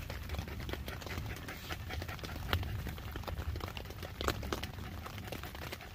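Raindrops pattering irregularly on the nylon tent fly as a new wave of a thunderstorm arrives, over a low steady rumble.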